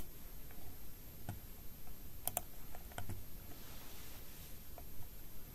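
A handful of scattered sharp computer mouse clicks, with a quick double click about two seconds in.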